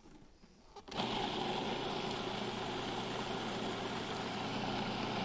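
Food processor motor switching on about a second in and running steadily, chopping a wet bean-and-walnut burger mixture.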